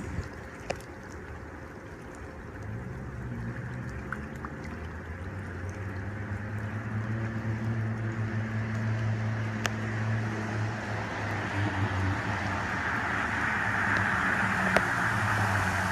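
A 2006 GMC Canyon pickup's engine running through an Aero Turbine performance exhaust, a steady low note that grows louder. A hiss of tyres and spray through standing water builds over the last few seconds.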